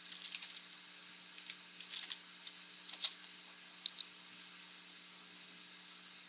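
Faint typing on a computer keyboard as a short command is entered: scattered key clicks over the first three seconds, the loudest about three seconds in, then two quick clicks about a second later, over a faint steady hum.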